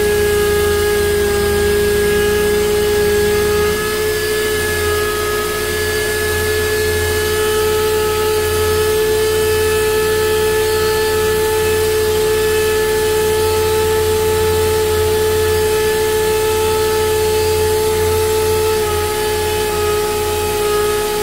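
Rupes random orbital sander running steadily against cured body filler on a car panel, block-sanding it smooth for primer; a constant machine whine with the rasp of abrasive on filler.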